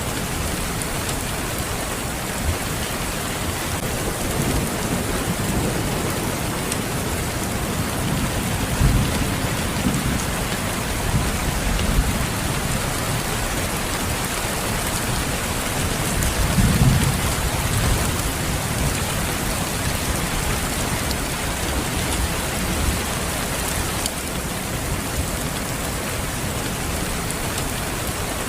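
Steady rain falling, a dense even hiss, with low rumbles of thunder swelling twice: about a third of the way in and again just past halfway.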